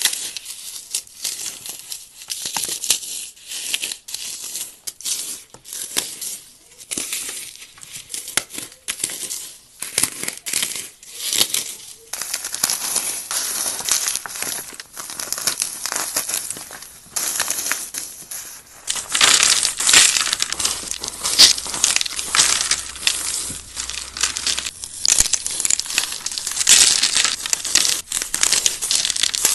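Paste-coated floral foam crunching and crackling as hands squeeze it and break it into crumbly chunks, a dense stream of dry crackles. The crunching grows denser and louder about two-thirds of the way in.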